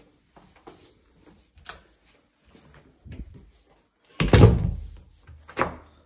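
Footsteps going up wooden stairs, then a heavy door thud about four seconds in and a sharper knock a second later.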